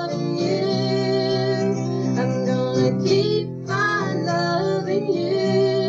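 A song with a singer holding long notes over acoustic guitar.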